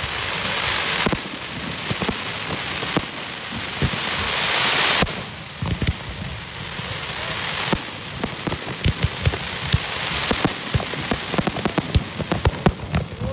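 Fireworks crackling: a dense hiss of crackling stars full of sharp pops. The hiss shifts abruptly several times and thins out about five seconds in, and the last few seconds bring a quick run of separate cracks.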